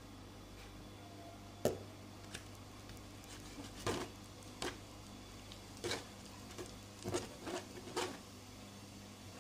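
Homemade glue-and-shaving-foam slime squelching as fingers knead and poke it in a bowl, with the blue detergent activator just poured on: a run of short wet squishes from about four seconds in. A single sharp tap comes a little before that.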